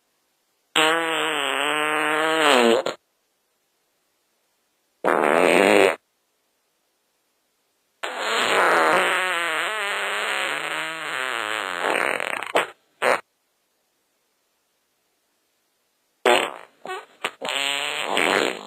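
A string of separate fart sounds with dead silence between them: one of about two seconds, a short one, a long one of about four and a half seconds whose pitch wavers up and down and ends in a quick blip, then a few quick sputters running into a longer one near the end.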